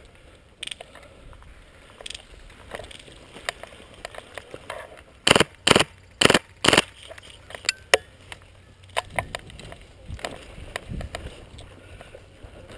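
PolarStar PR-15 air-powered airsoft rifle firing four sharp shots in quick succession about five to seven seconds in, with scattered fainter clicks before and after.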